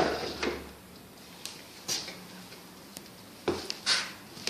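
Light knocks and clicks from heavy power drills being handled and set down, about half a dozen scattered hits, the loudest two near the end.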